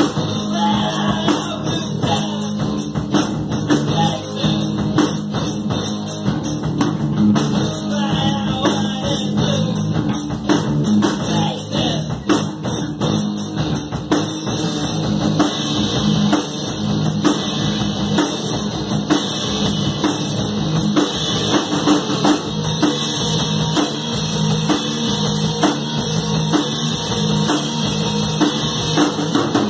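Three-piece rock band playing live on electric guitar, bass guitar and drum kit, with densely packed drum hits.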